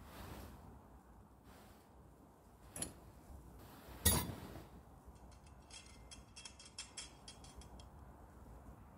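Sword-fight sound effects: a couple of soft swishes, a sharp strike, then a louder metallic clash with a short ring about four seconds in, followed by a run of fast, light clinking.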